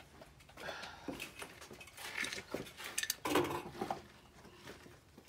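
Scattered light clinks and rattles of a shooter's gear and rifle being handled at the ready.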